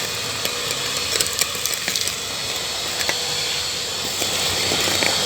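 Makita VC3011L construction vacuum cleaner running with a steady rushing hiss and a faint hum. Scattered clicks and rattles come from grit and small stones being sucked up through the hose.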